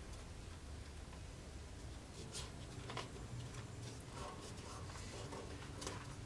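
Faint rubbing and a few small crackles and clicks of fingers pressing and smoothing pieces of tape onto a steel sword blade, over a steady low hum.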